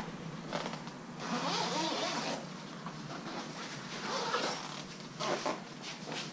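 Soft fabric rod holdall being handled and packed: cloth rustling in a few separate swishes, the longest about a second in, which sounds like a zip being run.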